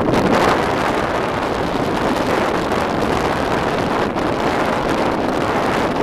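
Strong wind blowing across the microphone, a steady, loud, deep rush of noise.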